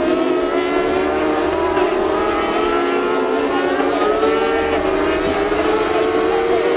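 Kawasaki race bike's engine at high revs, heard from its onboard camera, the pitch climbing and dropping in steps with gear changes.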